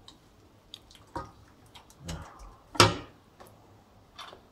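Wooden spatula knocking and scraping now and then against a frying pan of beef in sauce, a few scattered light knocks with the loudest about three seconds in.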